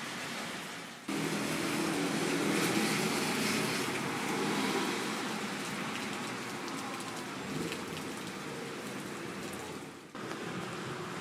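Rain falling on a city street, with traffic on the wet road: tyre hiss and a low engine hum from vehicles. The sound jumps louder suddenly about a second in and changes again abruptly near the end.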